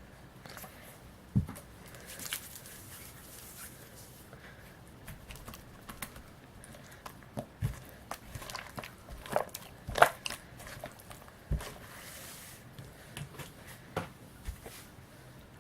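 Glue-based slime, oiled with baby oil while still a little sticky, being kneaded and stretched by hand: irregular wet, sticky clicks and pops, the loudest about ten seconds in.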